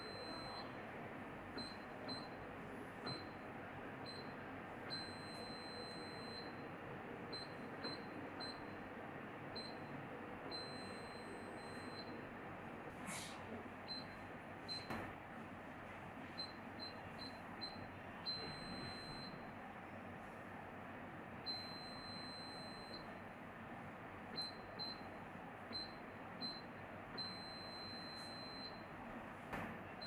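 Revolo electronic keypad deadbolt beeping as its buttons are pressed to program codes: short high beeps for single presses and several longer beeps every few seconds, over a steady hiss. Two sharp clicks come about halfway through.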